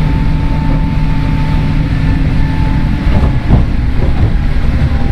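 JR 103 series electric train running, heard from inside its motor car (MoHa 103): a steady rumble of wheels and running gear under a motor whine that sinks slowly in pitch. It gets louder for a moment about three to four seconds in.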